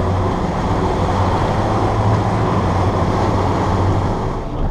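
Motorboat engine running steadily, a low drone under a constant rush of water noise.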